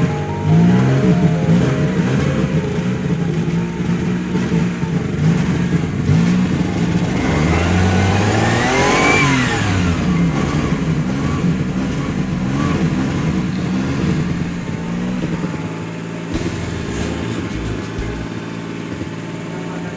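Maruti 800's three-cylinder petrol engine running on the choke just after a cold start from long standing, revved up and down again and again, with the highest rev about eight or nine seconds in. It settles to a steadier, lower run over the last few seconds.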